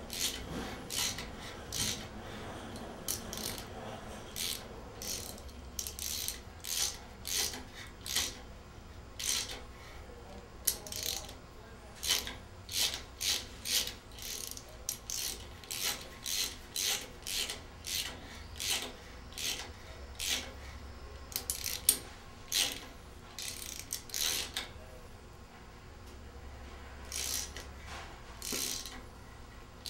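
Hand tap cutting 8 mm threads into the soft magnesium of an air-cooled VW engine case: a short, sharp scraping sound with each small turn of the tap, repeating about once or twice a second, with a lull near the end.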